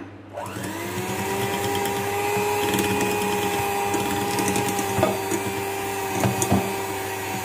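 Electric hand mixer starting up, its motor whine rising quickly to a steady pitch as the beaters whip powdered sugar into butter in a glass bowl. A few short clicks come about five to six and a half seconds in.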